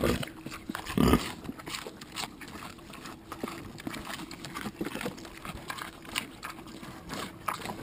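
Hungarian Mangalitsa pig biting into and chewing a slice of watermelon: wet crunching and smacking in quick irregular clicks, with one louder bite about a second in.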